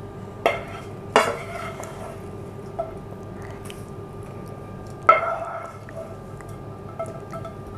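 Metal serving spoon clinking against dishes a handful of times as stir-fried vegetables are spooned onto a ceramic plate, with the loudest knocks about a second in and about five seconds in.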